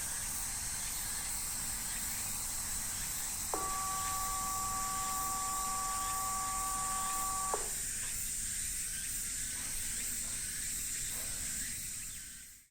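A held electronic chord of steady tones from the disaster-warning radio system's outdoor loudspeakers sounds for about four seconds, starting about three and a half seconds in and cutting off abruptly. A steady high hiss runs underneath throughout.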